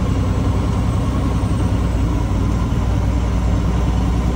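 Heavy diesel engine of a Peterbilt 389 truck running with a steady low drone, heard from inside the cab as the truck moves along a muddy road.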